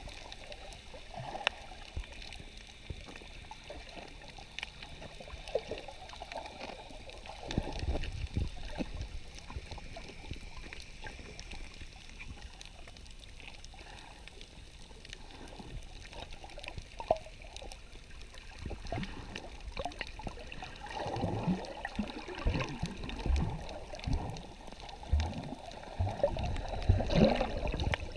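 Muffled underwater water noise: sloshing and gurgling with irregular low thumps and bubbling, growing busier and louder in the last several seconds.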